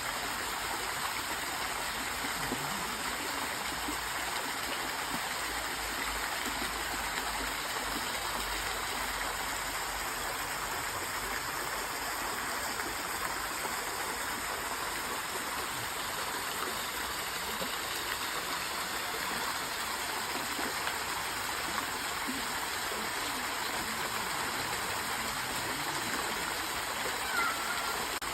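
A stream of water flowing steadily, an even, continuous rush without pauses.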